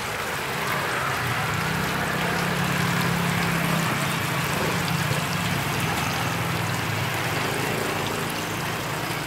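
Oil sizzling and bubbling steadily as batter-dipped small crabs deep-fry in a pan, over a low rumble that swells in the middle.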